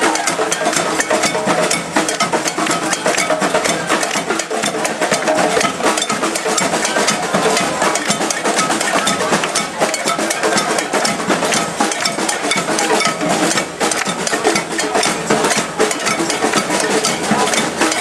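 Demonstration crowd on the march with a continuous, dense clatter of hand percussion and noisemakers, many knocks a second, with voices mixed in.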